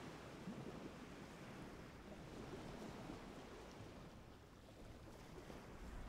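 Faint, steady rush of waves on the shore, mixed with wind.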